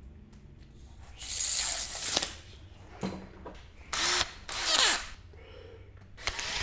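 Makita cordless drill drilling into a wall in about four short bursts, its motor whining down in pitch as the trigger is let go.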